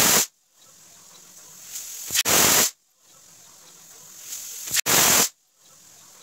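Aluminium pressure cooker on a gas burner whistling as it reaches pressure: each time a steam hiss builds up and then breaks into a loud, short whistle from the weight valve. There are three whistles about two and a half seconds apart, each cut off abruptly.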